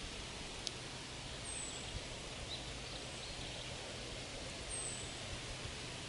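Forest ambience: a steady rustle of leaves in the wind, with a small bird giving a short, thin, high call that falls slightly. The call comes twice, about a second and a half in and again near five seconds, with faint chirps between.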